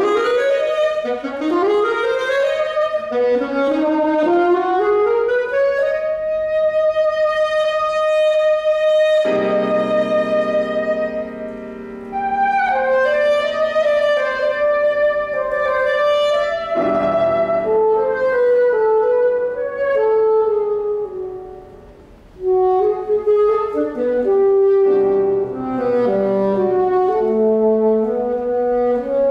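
Classical saxophone playing with grand piano. The saxophone opens with quick rising runs and holds one long high note, then carries a moving melody while piano chords come in beneath it, twice.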